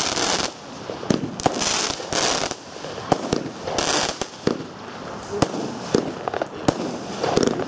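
Weco consumer firework battery firing: an irregular string of sharp bangs as its shells burst overhead, with spells of hiss from the glittering stars in between.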